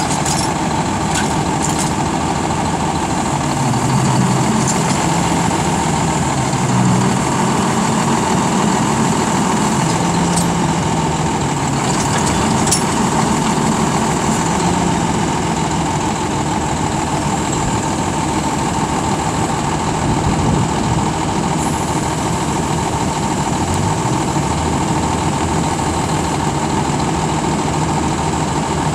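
Engine of a 2011 American LaFrance Condor side-load garbage truck running while its hydraulic automated arm lifts, dumps over the hopper and lowers. The engine speed rises and falls under the hydraulic load during the first half, then settles to a steady idle, with a few light clanks around the top of the lift.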